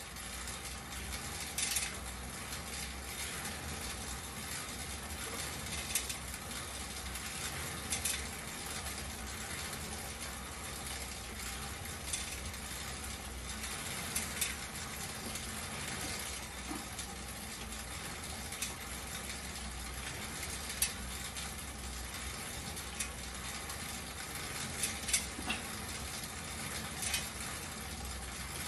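Schwinn air-resistance exercise bike being pedalled steadily: its fan wheel makes a continuous whooshing hum, with a sharp mechanical click from the drive every two seconds or so.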